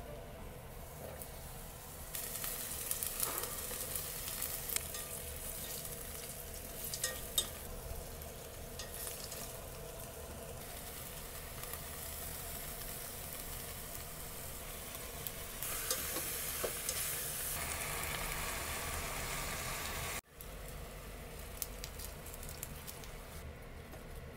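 Green onions, aromatics and beef frying in hot oil in a stainless steel pot: a steady sizzle with scattered short clicks and taps of food and utensils against the pot.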